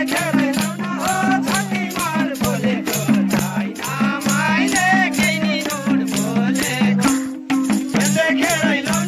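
Madal hand drums played in a quick folk rhythm, deep pitched bass strokes under sharp high slaps, with voices singing a Nepali folk song over them. The drumming drops out for a moment about seven seconds in.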